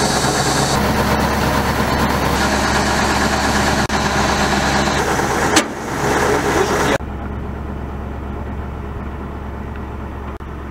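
Truck-mounted hydraulic drilling rig's engine running steadily, driving the hydraulics while the outriggers are set. About seven seconds in, the sound drops suddenly to a quieter, duller running.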